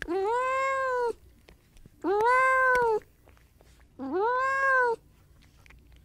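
Cat meowing: three drawn-out meows, each about a second long and about two seconds apart.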